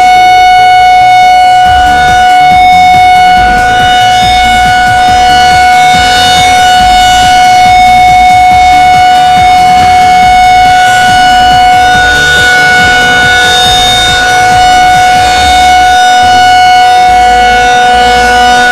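Outdoor tornado warning siren sounding one loud, steady, unbroken tone with strong overtones, over a low pulsing bass layer from a mixed-in music track.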